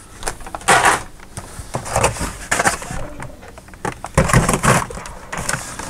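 Blister-packed toy cars on cardboard backing cards being shuffled and sorted in a plastic storage tub: irregular rustling, crinkling and clattering of plastic and card, louder about a second in and again near four seconds.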